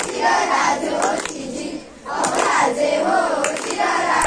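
A group of children singing together in unison, one phrase, a short break about two seconds in, then the next phrase.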